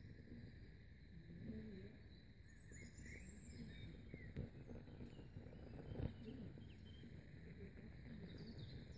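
Faint outdoor garden ambience with distant birds chirping, and a single soft knock about six seconds in.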